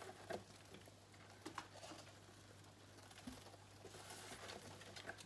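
Faint, scattered light taps and patter as cold-stunned desert locusts are shaken out of a cardboard box and drop onto the bottom of a plastic tub, over a low steady hum.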